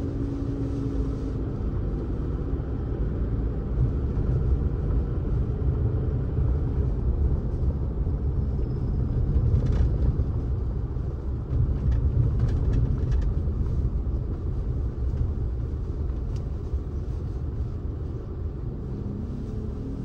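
Steady low rumble of a car being driven: tyre, road and engine noise, with a few brief clicks about halfway through.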